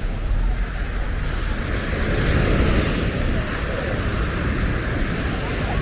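Sea waves washing onto a sandy beach, one wash swelling about two seconds in, with wind rumbling on the microphone.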